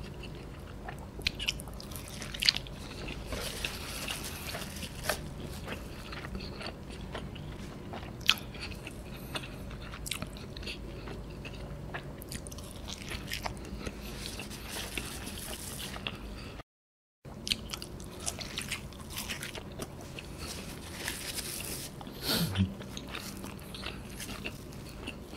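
A person chewing and biting folded, cheese-heavy pizza close to the microphone. Scattered short crunches and mouth clicks run over a steady background, with a brief gap of silence about two-thirds of the way through.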